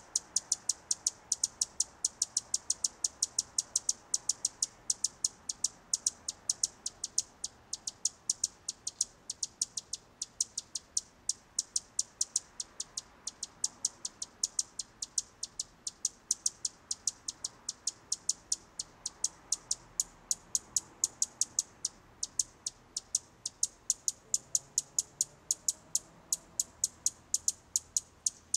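Evenly repeated high-pitched chirps, about four a second, keeping a steady rhythm throughout.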